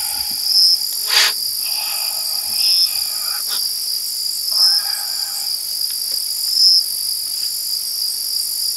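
Night chorus of crickets and other insects: a steady high-pitched trill that swells in brief louder pulses every second or two.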